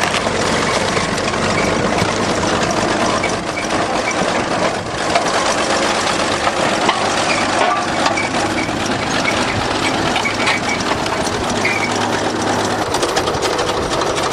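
Bulldozer engine running steadily, with scattered knocks and clanks.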